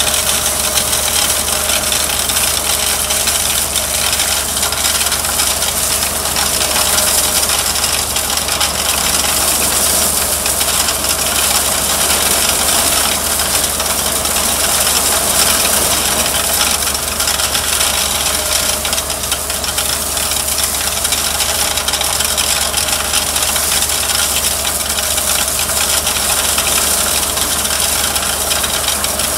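Conveyor truck's engine running steadily while its belt conveyor carries landscape rock, with a constant rattling rush of rock along the belt.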